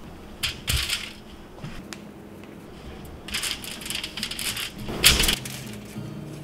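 Several short bursts of crunchy rustling and scraping as crumb-coated, skewered hasselback potatoes are rolled in a glass baking dish and laid onto a foil-lined baking sheet. The loudest burst comes about five seconds in.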